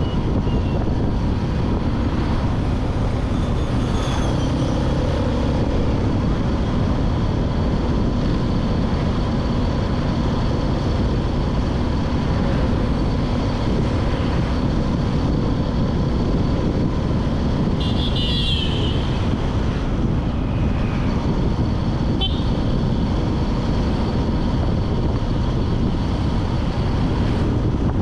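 Road and traffic noise heard from a moving vehicle, with a steady low rumble of wind and engines. A vehicle horn toots briefly about two-thirds of the way through, and a shorter beep follows a few seconds later.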